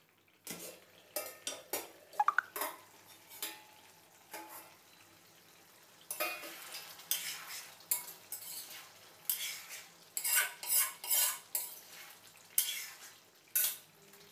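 A steel lid clanking as it is lifted off a kadai, then a metal spatula scraping and stirring chicken curry against the pan in quick repeated strokes.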